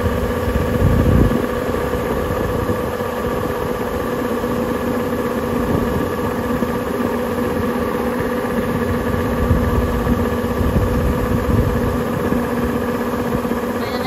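Kubota combine harvester running steadily with its unloading auger turning, pouring harvested rice grain out of the spout into a bulk bag: a constant engine and machinery drone with several steady tones in it.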